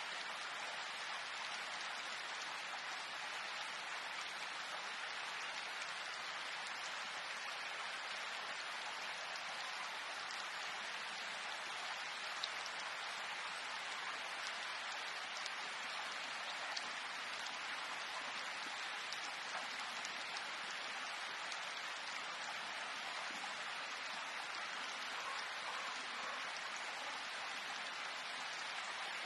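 Steady rain falling: an even hiss, with a few sharper drop ticks now and then.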